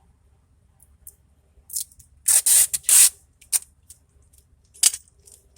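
Strips of tape being pulled off a roll in short rips, the loudest two about two and a half seconds in and another short one near the end.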